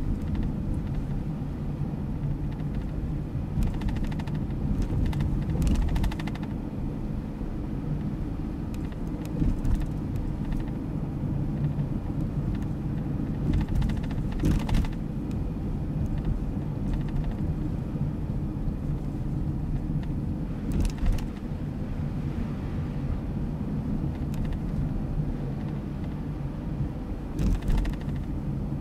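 Car driving slowly on a snow-packed street, heard from inside: a steady low rumble of engine and tyres, with a few short knocks every several seconds.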